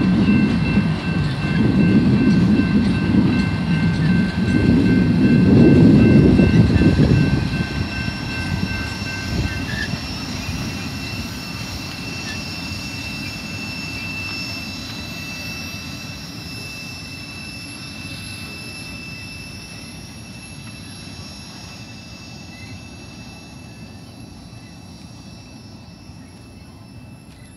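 BNSF double-stack container train rolling past, its well cars giving a loud low rumble with thin, high, steady wheel-squeal tones over it. About seven seconds in the rumble starts to fade, and it keeps dying away as the train rolls off into the distance.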